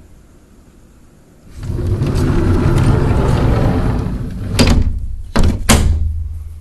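Sliding window rumbling along its track for about three seconds, then three sharp knocks near the end as it hits the frame.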